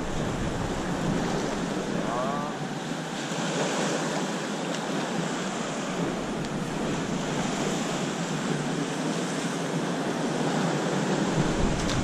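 Sea waves washing and breaking against the rocks of a breakwater, a steady rushing noise, with wind on the microphone that adds a low rumble near the end. A brief faint rising cry sounds about two seconds in.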